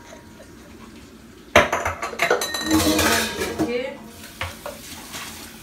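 Metal pots and utensils being handled and clanking together. There is a sharp clank about a second and a half in, then about two seconds of clattering with some ringing, and a few lighter knocks after that.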